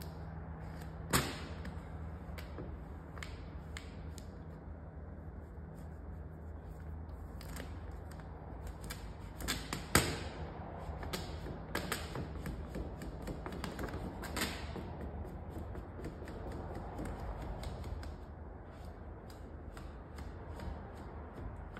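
Vinyl wrap film crackling and snapping as it is handled and pulled at the lower edge of a car door, in scattered sharp clicks, the loudest about ten seconds in, over a steady low hum.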